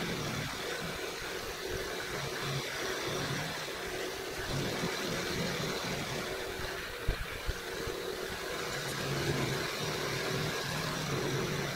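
Milling machine running a roughing end mill that is cutting down the top of a round metal pedestal blank, the table fed by hand: a steady machining hum, with a couple of sharp ticks about seven seconds in.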